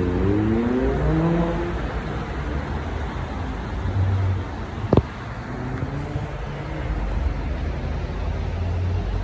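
Road traffic noise, with a motor vehicle speeding up in the first two seconds and a sharp click about five seconds in.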